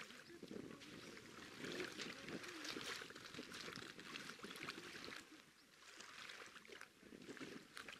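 Small river waves lapping and trickling over a pebbly shoreline, a faint, irregular splashing wash.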